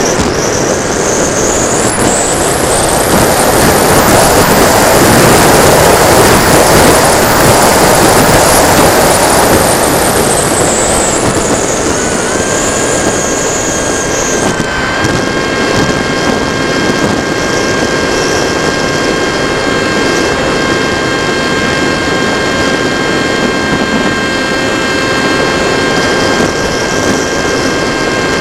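Onboard sound of a TechOne Mercury electric RC foam plane in flight: heavy wind rush on the nose-mounted microphone mixed with the motor's high whine. The whine climbs in pitch over the first few seconds, with the rush loudest there, then drops back about halfway through. Thin steady tones run underneath.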